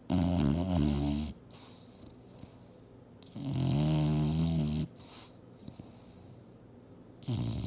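English bulldog snoring in her sleep: three loud, pitched snores about three and a half seconds apart, each lasting a second or more, the last beginning near the end.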